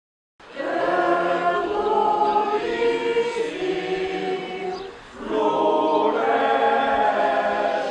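A group of procession walkers singing a Catalan hymn (goigs) together, in two sung phrases with a short breath about five seconds in.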